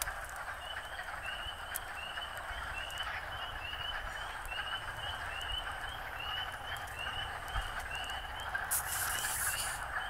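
Frogs in the first spring chorus, calling together in a dense, continuous chatter. Over it, short rising peeps repeat about twice a second, and a brief hiss comes near the end.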